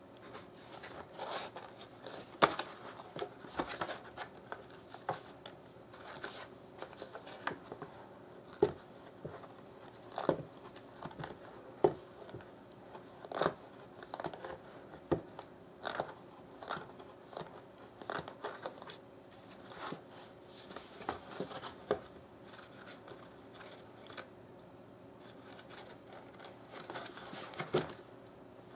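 A Siamese cat clawing, batting and biting at an empty box: irregular scratches, crinkles and sharp taps, coming in quick clusters with short gaps between them.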